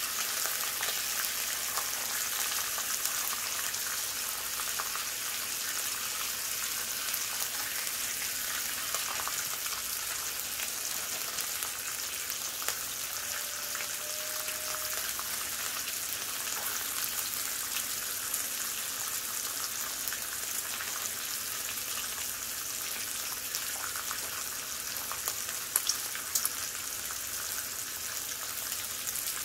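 Bacon strips sizzling on a Blackstone 22-inch tabletop propane griddle turned down to low heat: a steady crackling hiss of frying fat, with a few louder pops near the end.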